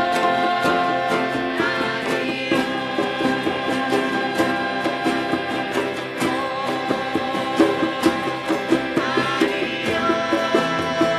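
Live improvised music: several sustained pitched instruments or voices held over a steady rhythm of hand-drum strikes.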